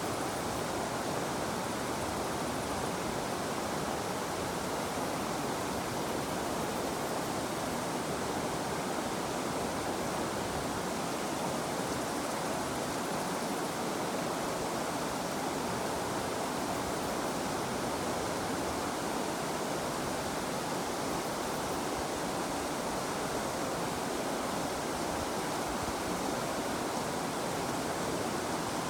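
River water flowing over rocks in a steady, unbroken rush.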